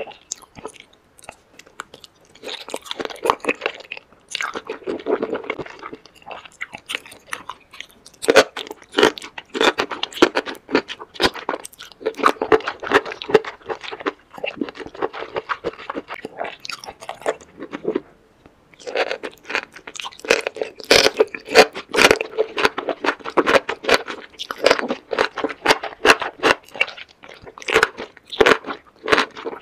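Close-up mouth sounds of eating spicy sauce-coated enoki mushrooms: a steady run of wet crunching and chewing, with many quick irregular crunches. There is a brief pause about two-thirds of the way through.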